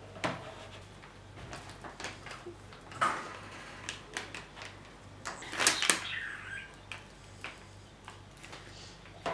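Hands squishing and crumbling a moist mixture in a plastic bowl, with irregular rustles and crinkles from a packet wrapper; the loudest handling noises come about 3 seconds in and again around 6 seconds, over a faint steady low hum.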